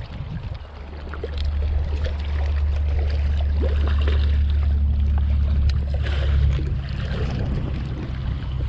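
Wind buffeting the microphone: a steady low rumble that eases a little near the end, with faint clicks and rustles over it.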